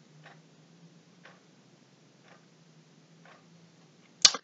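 A clock ticking faintly about once a second over a low steady hum, with a single sharp click near the end.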